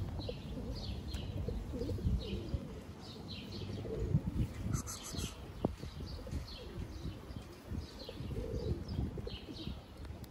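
Feral pigeons cooing while small birds chirp over and over, over a steady low rumble.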